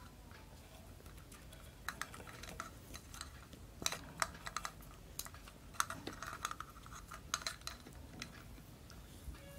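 Black PVC electrical tape being pulled off its roll and wound around spliced cable joints: faint, scattered crackles and clicks that start about two seconds in.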